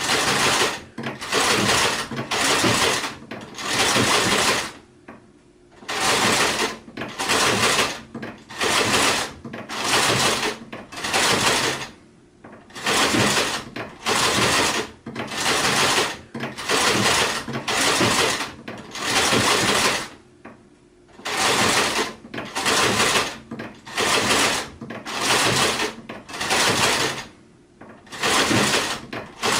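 Sewing machine stitching in short runs, starting and stopping about once every second, with a longer pause every several seconds.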